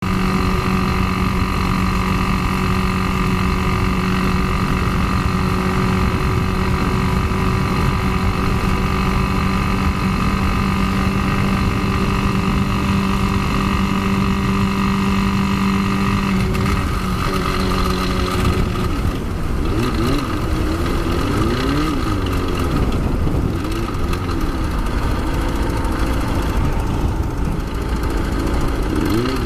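Kawasaki ZX-6R inline-four engine idling steadily, then revved up and down over and over from about two-thirds of the way through. It carries a strange noise that the owner fears is a failing connecting rod ("se desbiela").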